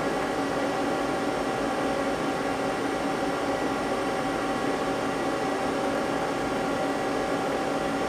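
Steady hum and whir of a powered-up Mazak CNC lathe and its control, with several fixed tones held at an even level.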